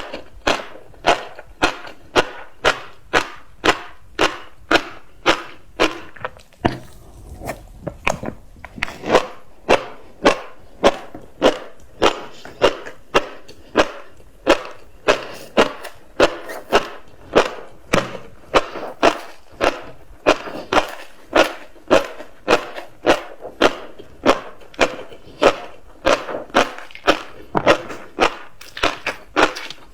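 Close-miked chewing of tobiko (flying fish roe): sharp crunches at about two a second, with a short pause about seven seconds in.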